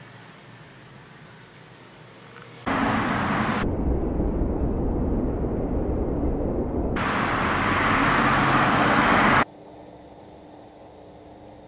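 Loud street traffic noise that cuts in suddenly about three seconds in, sounds muffled for a few seconds in the middle, then comes back bright and stops abruptly. A faint, steady low background hum runs before and after it.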